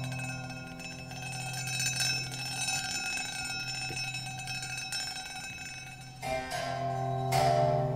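Hanging metal percussion, a circular saw blade and cut metal plates struck with beaters, ringing out with many lingering bell-like tones. Two new strikes come about six and seven seconds in, over a low steady drone.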